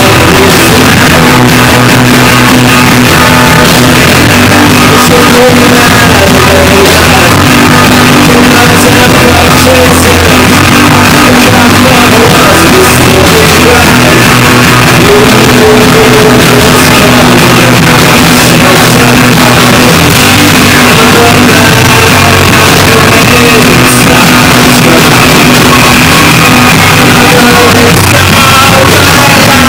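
Live rock band playing with a singer, recorded so loud that the sound is overloaded and distorted.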